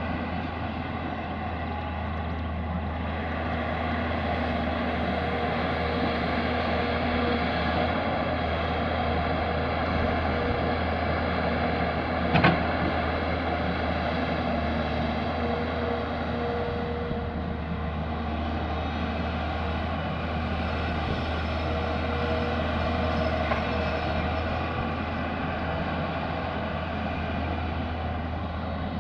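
Tata Hitachi excavator's diesel engine running steadily under work, with one sharp knock about twelve seconds in.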